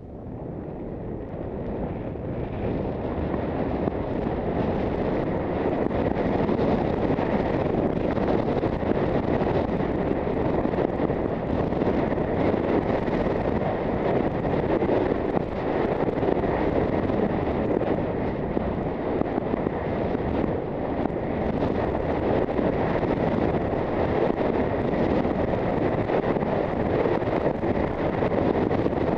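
Wind rushing and buffeting over a helmet-mounted Contour +2 action camera's microphone as a skier descends a run. It builds over the first few seconds as speed picks up, then holds as a steady, loud rush.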